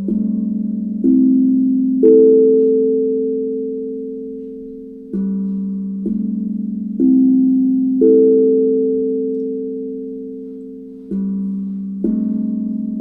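Steel tongue drum struck with mallets whose heads are wrapped in two layers of cut-off glove fingers, a covering meant to give a softer, more muted tone. It plays unhurried phrases of a few notes about a second apart, each note ringing on and fading slowly.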